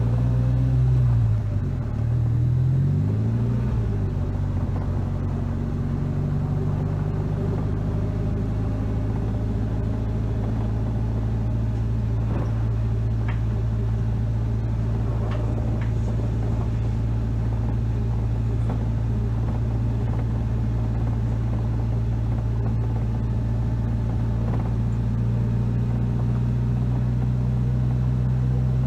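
Engine of an open three-wheeled roadster driving on rutted snowpack. Its pitch rises and falls a couple of times in the first few seconds, then holds a steady cruising note, with a few faint knocks around the middle.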